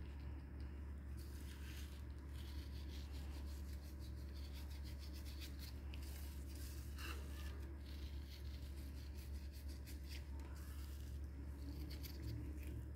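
Gloved hand rubbing salt and crushed peppercorns into raw tenderloin steaks on a plate: soft rubbing and light scratching, on and off, over a steady low hum.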